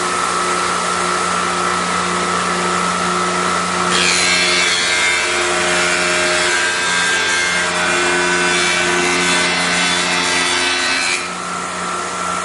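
Raimondi Bulldog bullnose machine's belt-driven 1-1/2 hp motor running steadily. About four seconds in, its diamond rough-finish wheel starts grinding the edge of a porcelain tile being passed by it. The grinding stops suddenly about eleven seconds in while the motor keeps running.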